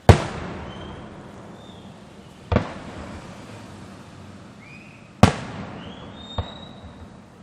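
Aerial fireworks shells bursting: three loud booms about two and a half seconds apart and a smaller fourth one, each followed by a long, fading rumble.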